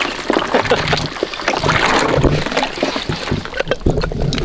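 Chunks of broken ice knocking and splashing in a stock tank's water as a dog plays with them, with irregular clatters throughout.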